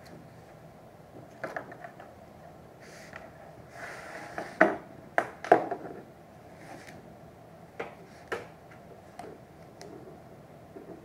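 Handling noise from a self-contained breathing apparatus set being assembled on a table: scattered knocks and clicks of the harness, straps and cylinder, with the loudest knocks clustered about halfway through.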